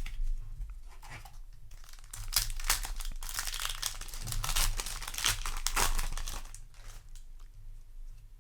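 A foil trading-card booster pack being torn open and its wrapper crinkled. There is light rustling at first, then about five seconds of dense crackling and tearing that dies down near the end.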